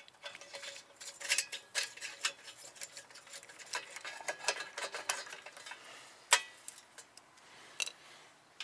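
Ratchet wrench clicking in short runs, with sharp metal clinks, as the already-loosened spindle bolts are backed out; the loudest clink comes a little past six seconds in.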